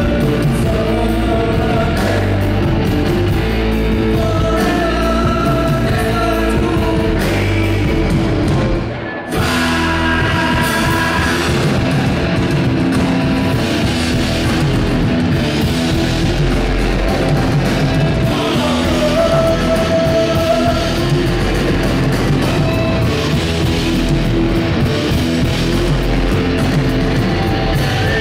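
Live rock band playing at full volume: distorted electric guitars, bass guitar and drums, with a male singer. The band breaks off for a moment about nine seconds in, then comes straight back in.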